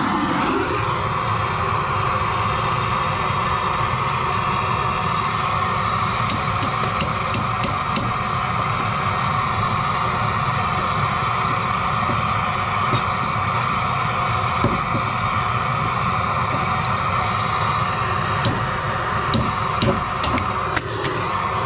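Handheld gas torch burning with a steady hissing roar while it heats a soldered copper elbow to melt the joint; a few light taps come near the end.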